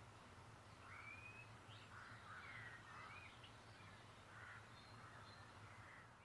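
Faint outdoor birdsong: songbirds giving short whistled calls and chirps, several gliding up or down in pitch, over a steady low hum and hiss.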